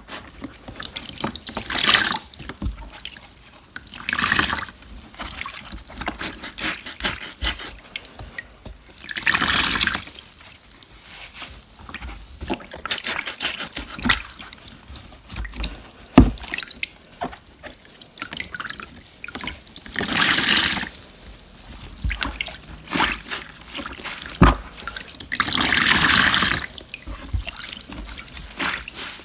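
Water dripping and splashing, with louder bursts of water gushing or pouring out every few seconds, five in all.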